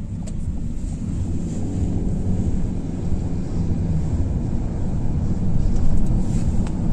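Engine and tyre noise of a car driving in city traffic, with vehicles passing close alongside, growing steadily louder.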